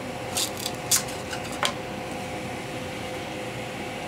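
3D-printed dial being pried loose from the printer's glue-coated glass bed: five sharp clicks and cracks in quick succession, the loudest about a second in, over the steady hum of the printer's cooling fans.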